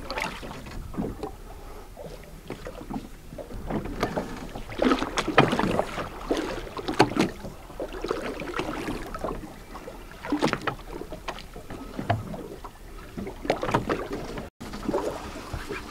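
Water lapping and slapping in uneven surges against the side of a small fishing boat, with some wind on the microphone.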